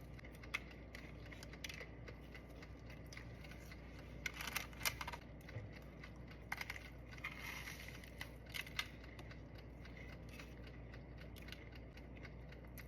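Faint crackling and small clicks of flaky croissant pastry being bitten and chewed, coming in scattered clusters about four seconds in and again around eight seconds.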